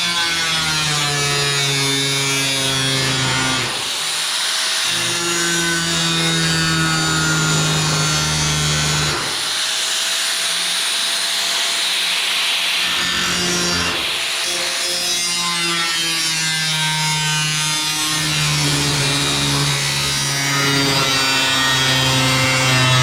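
A power tool cutting sheet metal, running steadily, its pitch shifting every few seconds as the cut goes on.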